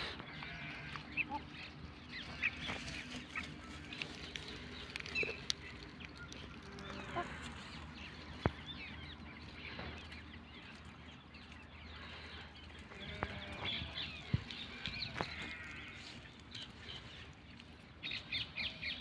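Poultry calling in short, scattered clucking or quacking notes, with a few sharp clicks and a faint steady low hum underneath.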